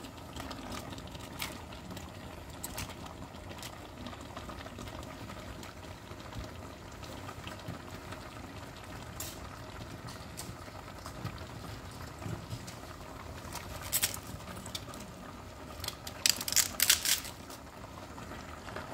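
Vegetables and meat simmering and sizzling in their own juice under a heap of raw cabbage in a large pot, a steady soft hiss with light crackles. A few sharp clicks come once about two-thirds in and again in a quick cluster near the end.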